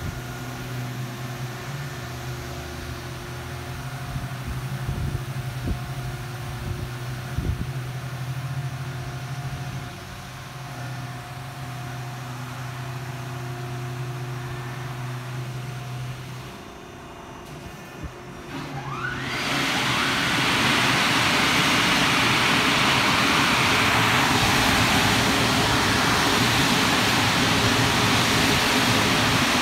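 Car wash machinery hums steadily. About two-thirds of the way through, the Specialty Equipment blower dryers spin up with a rising whine into a loud, steady rush of air.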